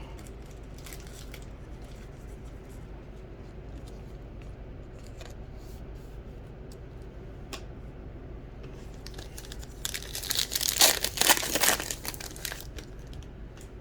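A baseball card pack wrapper being torn open and crinkled: a loud stretch of tearing and crackling about ten seconds in, lasting a couple of seconds, after faint clicks of cards being handled.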